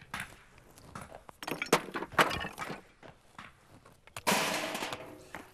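Stones being broken by hand with a small hammer: a string of sharp knocking strikes on rock, then a louder, rough noisy burst about four seconds in that lasts about a second.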